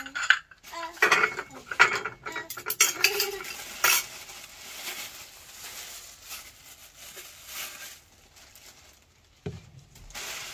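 Bowls and utensils clinking and knocking as they are lifted from a basket and set down on a wooden floor, several sharp knocks in the first few seconds. Then a plastic bag crinkles and rustles, and there is a single thump near the end.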